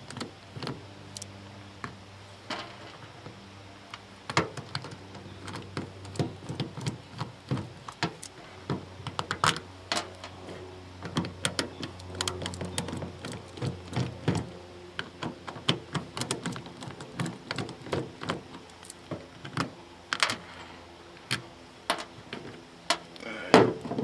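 Irregular small clicks and taps as a screwdriver backs square-drive security screws out of a plastic GFCI plug housing, with the loose screws set down one by one on sheet metal.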